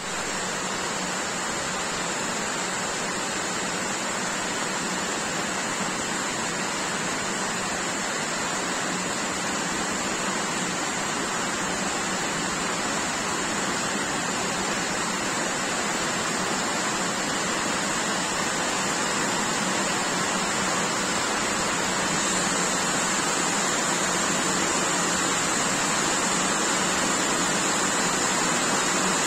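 Heavy rain pouring steadily onto trees, lawns and buildings: a dense, even hiss that grows a little louder in the second half.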